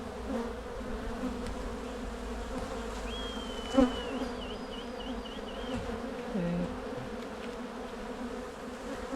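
Honey bees from an opened hive humming steadily, the buzz of a large colony stirred up during a frame inspection. A sharp knock sounds a little under four seconds in.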